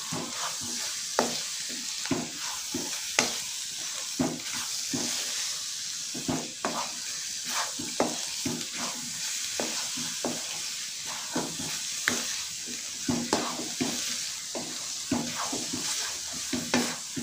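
A spatula stirring and scraping a thick pineapple, coconut and semolina mixture in a kadai, with frequent soft knocks against the pan over a steady sizzle. The mixture is being cooked down until it comes away from the sides of the pan.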